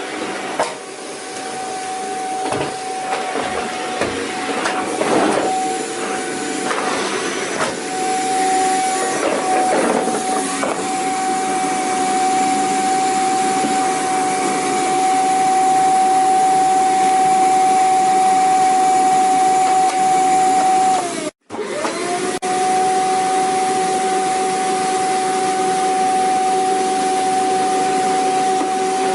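Vacuum cleaner motor running with a steady high whine over a rush of air, with uneven scraping and rustling over the first ten seconds or so. About 21 seconds in the whine sags, the sound cuts out for a moment, and then it resumes at the same steady pitch.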